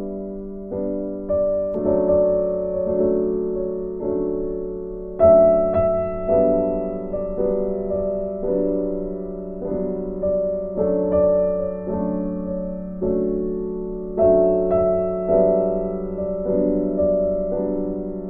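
Background piano music: a gentle melody of notes and chords, a new note struck about once or twice a second, each fading away after it sounds.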